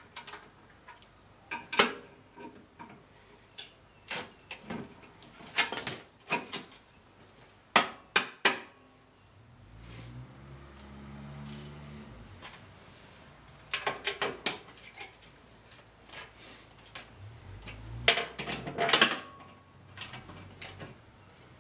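Irregular metallic clinks and knocks of a hand tool on the snowblower's steel skid plate and housing as the skid-plate bolts are adjusted, with two quick runs of clicks later on.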